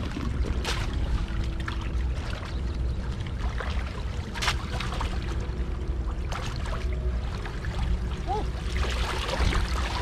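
Muddy shallow water sloshing and splashing as a person wades and scoops through it with a woven bamboo basket, over a steady low rumble. A few sharp knocks stand out.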